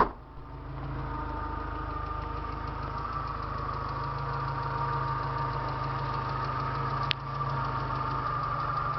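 Suzuki Vitara J20A 2.0-litre 16-valve petrol engine idling steadily after starting on a repaired ECU, running on all four cylinders. A sharp click comes at the very start and another about seven seconds in.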